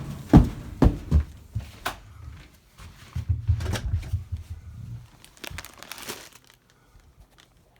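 Footsteps crunching in snow, a few sharp steps about half a second apart, then softer rustling and shuffling that fades out about 6.5 seconds in.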